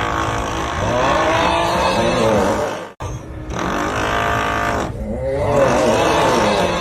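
Meme sound effect of a long, groaning 'uuuugh' snore over the steady noise of a drill, played on a loop; it cuts out for an instant and restarts about three seconds in.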